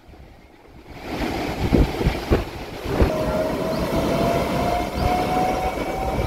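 Train running on rails: about a second in a steady rumble starts, with a few heavy clacks of the wheels over rail joints, then from about halfway a long steady tone that rises slightly in pitch.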